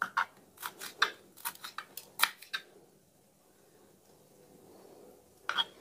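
Kitchen knife slicing small red chilies on a wooden cutting board: about a dozen quick, sharp taps of the blade against the board, then a pause of a few seconds, then a couple more taps near the end.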